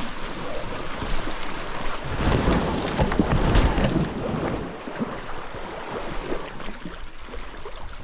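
Creek water rushing past a packraft as it is pushed through a narrow, willow-choked channel, with branches and leaves scraping and crackling against the raft and camera, loudest in the middle. Wind buffets the microphone.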